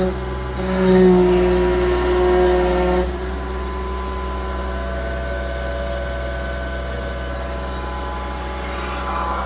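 Samsung excavator's diesel engine running, roaring louder for the first few seconds, then dropping back to a steady, quieter run about three seconds in.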